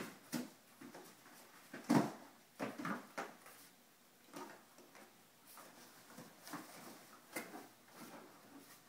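Two English springer spaniel puppies tearing and chewing a cardboard box: scattered rips, rustles and knocks of cardboard at irregular moments. The loudest is about two seconds in.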